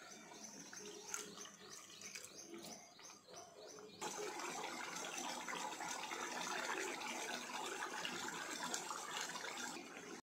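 Short falling chirps repeat about three times a second, like a small bird calling in the background. About four seconds in they give way to a louder, steady bubbling and sizzling: the egg masala gravy for an egg dum biryani simmering in a pot on a gas stove.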